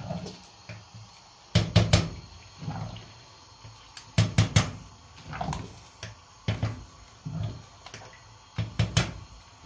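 Metal ladle stirring thick wheat porridge (harisa) in a stainless steel pot. It knocks against the pot in short clusters of sharp clacks every two or three seconds.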